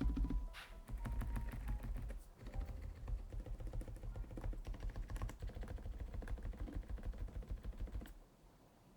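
Rapid typing on a Lofree Flow Lite low-profile mechanical keyboard with full-POM switches: a dense run of key clacks that stops about eight seconds in.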